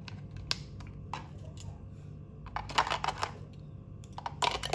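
Batteries clicking and knocking as they are pressed into the plastic battery compartment of a toy Thomas train: a few single clicks, then quick clusters of clicks about two and a half seconds in and again near the end.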